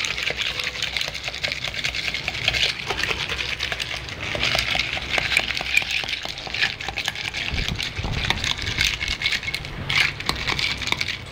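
A long bar spoon churning crushed ice in a tall glass of mojito: fast, constant clinking and rattling of ice against the glass and the spoon. A low rumble joins in for the last few seconds.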